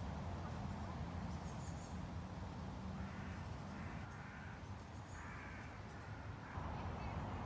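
A crow cawing about four times, roughly once a second, from about three seconds in, over a steady low city hum.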